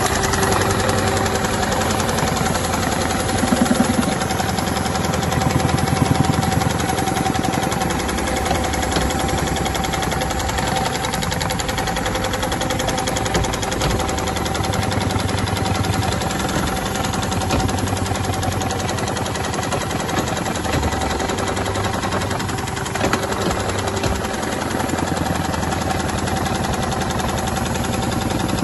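Automatic CNC belt-sewing machine with a Dürkopp Adler heavy-duty sewing head running at speed, stitching a work belt: a rapid, steady mechanical clatter with a steady whine underneath. It starts abruptly at the outset and runs on without a break.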